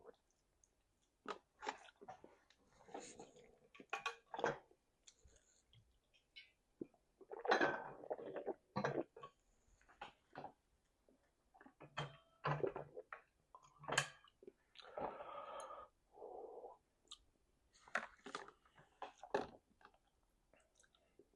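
Close-miked chewing: irregular wet mouth clicks and lip smacks of a person eating, with a few longer, noisier stretches of chewing.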